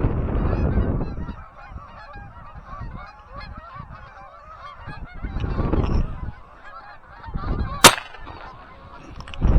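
A flock of Canada geese honking continuously, many short overlapping calls, with wind rumbling on the microphone at the start and again about six seconds in. About eight seconds in comes one sharp, loud bang.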